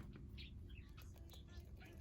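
Faint, soft chirps and twitters from pet birds, with a few small clicks.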